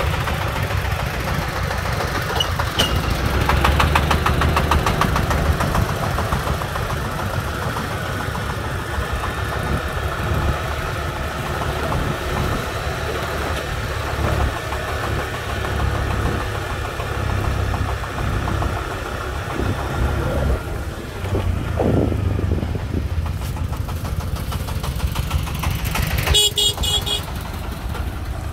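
Công nông farm truck's single-cylinder diesel chugging along, mixed with the running engine and road noise of the motorbike following it. A vehicle horn sounds briefly near the end.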